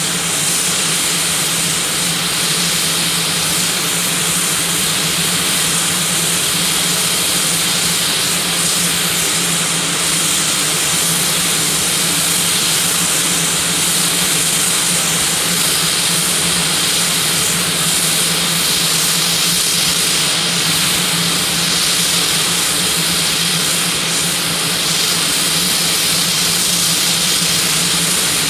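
Basler BT-67's Pratt & Whitney Canada PT6A-67R turboprop engines idling on the ground. A loud, steady turbine hiss with a low hum underneath.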